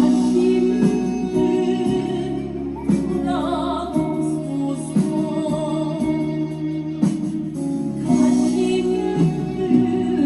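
Music with a singing voice wavering over sustained held tones, with a few sharp percussive strikes.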